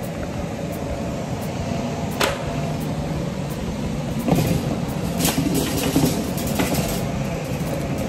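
Metal shopping cart being pushed into the store: its wheels rumble steadily and it rattles with a handful of sharp clacks from about two seconds in.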